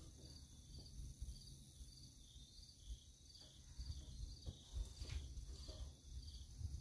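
Quiet outdoor ambience: insects chirping faintly in a steady pulse about twice a second, over a low rumble. A few faint knocks come as the rifle is shouldered and settled.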